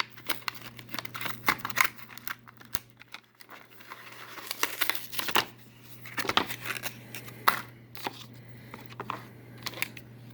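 Stiff plastic blister packaging being handled and pulled apart, crinkling with irregular sharp clicks and scrapes.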